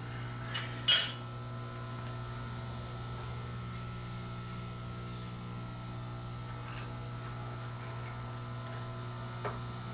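Metal tools clinking as they are handled among other tools, with one loud clatter about a second in and several light clinks around four seconds, over a steady electrical hum.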